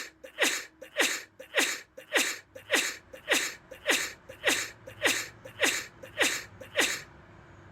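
A rapid run of about thirteen short sneezes, evenly spaced almost two a second, each falling in pitch. They stop about seven seconds in, leaving a faint low hum.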